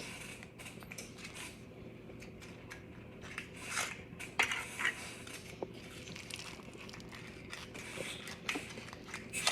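A spoon scraping and tapping against a bowl and paper cupcake liners as batter is spooned in: faint, scattered clicks and short scrapes.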